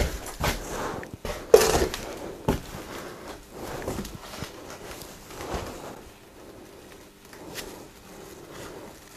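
Several sharp knocks and thuds in quick succession, the loudest about a second and a half in, followed by quieter shuffling footsteps and rustling in a small room.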